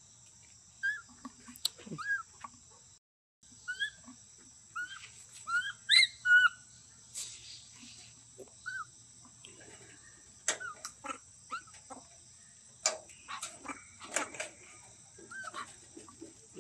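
Baby long-tailed macaque giving short, high, whimpering coo calls, each rising and falling in pitch, repeated about once a second, over a steady high drone of insects. Scattered clicks and knocks come in the second half.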